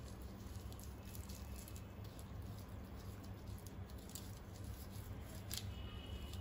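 Gloved fingers patting and rubbing wet spice paste onto the skin of a whole fish: faint, irregular soft pats and squishes, with one sharper click a little before the end, over a steady low hum.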